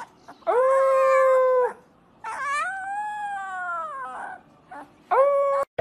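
Very young husky puppy howling three times: a steady high howl, then a longer one that rises and falls, then a short one near the end.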